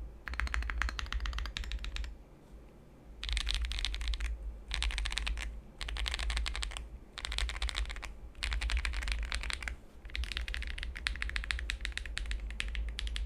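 Fast typing on a mechanical keyboard with lubed Akko CS Lavender Purple tactile switches, a polycarbonate plate and ASA-profile keycaps: rapid runs of keystrokes in bursts of about a second each, broken by short pauses, the longest about two seconds in.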